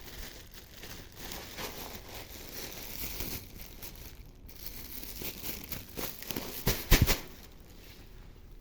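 A plastic bag crinkling and rustling as it is handled, with a cluster of sharp knocks about seven seconds in.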